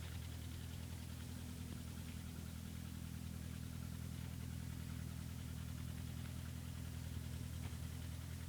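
BMW M40 four-cylinder engine idling steadily. The knock it had before was not cured by a rebuild with a new crankshaft, connecting rods and cylinder head.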